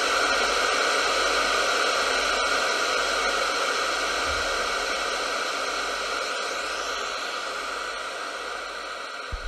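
Radio static: a steady hiss of an untuned AM or FM radio, slowly fading, with a short thump just before the end.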